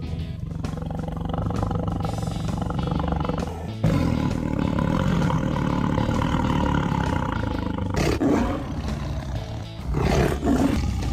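Recorded tiger roars played as sound effects: a long rumbling roar, then two shorter roars near the end, over background music.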